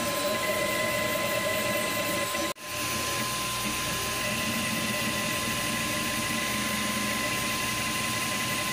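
Cetus3D desktop 3D printer running mid-print: a steady mechanical whir with a steady high whine from its fan and motors. The sound drops out for a moment about two and a half seconds in.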